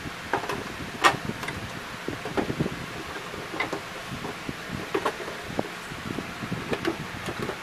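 Irregular light clicks and knocks of an inkjet printer's plastic casing being handled and shifted by gloved hands, the loudest about a second in, over a steady background hiss.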